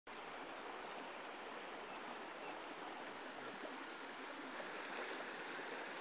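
Shallow river flowing steadily over rocks, an even babble of running water.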